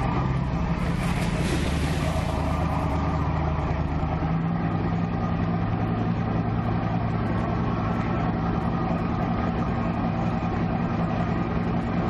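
Boat motor running with a steady drone under wind and water noise; its tone shifts slightly about four seconds in.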